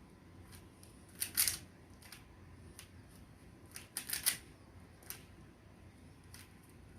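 A Rubik's cube's plastic layers being twisted by hand: scattered short clicks and clacks, loudest about a second in and again around four seconds in.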